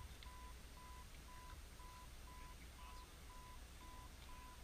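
Camera self-timer beeping faintly: short, even, single-pitch beeps, about two a second, counting down to the shot.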